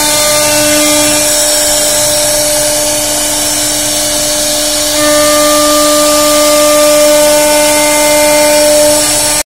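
CNC router spindle whining steadily as its bit carves circular grooves into a solid wood panel, with a hiss from the cut. About five seconds in a higher tone joins and it gets slightly louder, and the sound cuts off abruptly at the very end.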